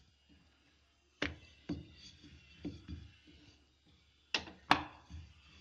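Wooden rolling pin and hands knocking on a glass plate while flatbread dough is rolled out: three soft knocks after about a second, then two sharp clicks about a third of a second apart near the end, the loudest.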